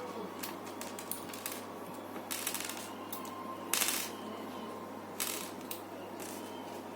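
Small laptop screws and parts being handled: scattered light clicks, with three short rustling scrapes about two and a half, four and five and a half seconds in, over a steady low hum.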